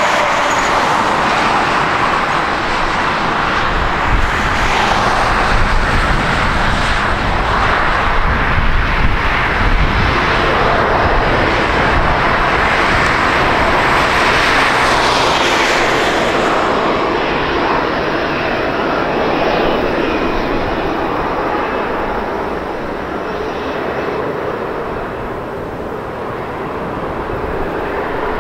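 Boeing 787's twin jet engines running at taxi power as the airliner lines up and rolls slowly along the runway: a steady, loud jet noise. The highest hiss drops away a little over halfway through.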